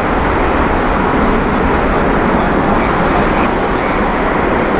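Airbus A380-841's four Rolls-Royce Trent 900 turbofan engines running, a loud, steady jet roar with no break.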